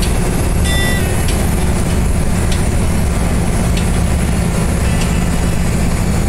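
Steady low rumble of a moving road vehicle, engine and road noise, with faint ticks about every second or so.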